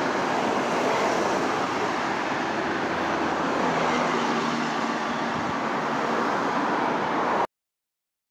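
Road traffic noise: cars passing along a four-lane road, a steady rushing of tyres and engines, cutting off abruptly near the end.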